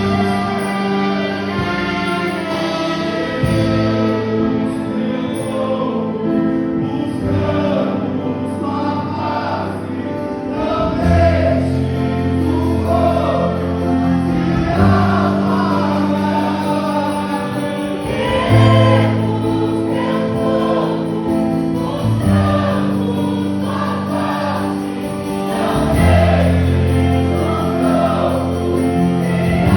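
Christian gospel music: a choir singing over instrumental accompaniment with held bass notes.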